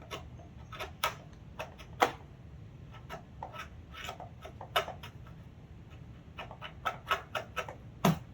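Hand carving chisel cutting into wood: an irregular series of short, sharp snaps and scrapes as the blade takes chips. A steady low hum sits underneath.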